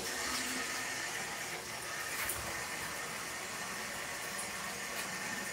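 Water running steadily from a kitchen tap as something is rinsed out under it.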